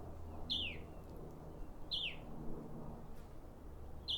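A bird chirping three times, about a second and a half apart, each chirp a short quick downward note, over a faint steady low hum.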